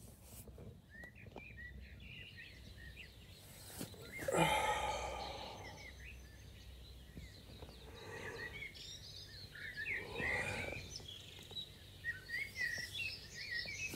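Birds chirping and calling from the surrounding bush in the early morning, many short chirps overlapping. A louder burst of sound comes about four seconds in, with smaller ones later.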